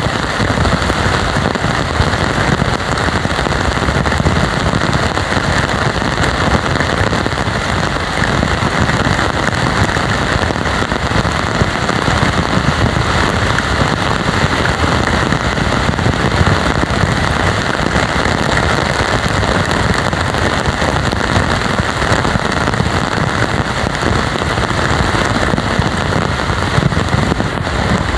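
Heavy tropical rain pouring steadily, a loud, even hiss of dense drop impacts.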